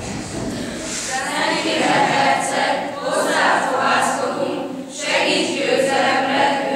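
A group of voices singing together in a choir, holding notes that rise and fall.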